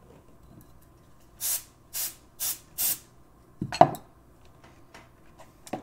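Four short hissing bursts about half a second apart, then a single sharp thump, the loudest sound, about a second later.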